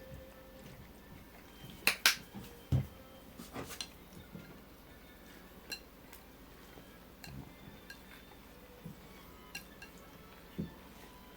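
Tableware clinking and knocking: a quick pair of sharp clinks about two seconds in, followed by a duller knock, then a few light, scattered taps.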